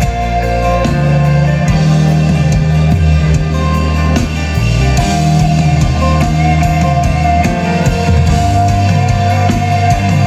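A live band playing loudly, with guitar over sustained bass notes and drums.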